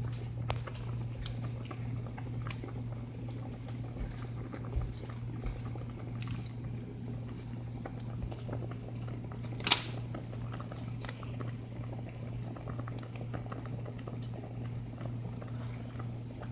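Ginger, garlic and onions crackling and sizzling in a pot of hot oil, with a faint steady hum underneath and one sharp tap about ten seconds in.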